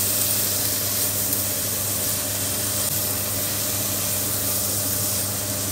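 Pork and vegetables sizzling steadily in a hot wok as they stir-fry, an even hiss with a steady low hum underneath.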